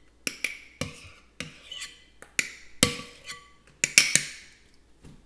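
A metal spoon knocking and clinking against a cup as whipped cream is scooped out and tapped off. There are about ten irregular taps, some of which ring briefly.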